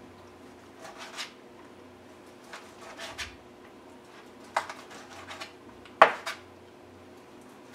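Large kitchen knife slicing through cooked venison steak, the blade knocking on the cutting board in short groups of strokes, with the loudest knock about six seconds in.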